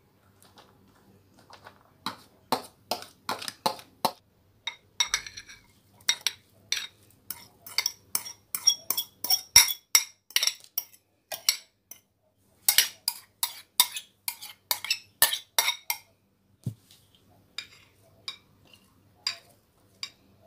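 A spoon tapping and scraping against small bowls as chopped vegetables are emptied into a glass mixing bowl. The sound is runs of sharp clinks, about four a second, some with a short glassy ring. There is a pause partway through, and only scattered taps near the end.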